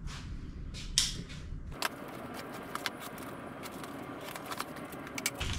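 A cardboard box being opened by hand: scratching, rustling and many small clicks as the flaps and packing are worked open, with a sharp click about a second in.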